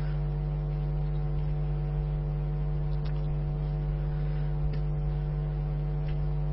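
Steady electrical mains hum: a low, unchanging drone with a ladder of fainter, higher buzzing overtones.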